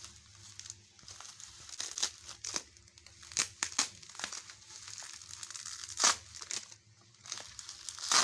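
Packaging crinkling and rustling as it is handled and opened by hand, in irregular sharp crackles, the loudest about six seconds in and again near the end.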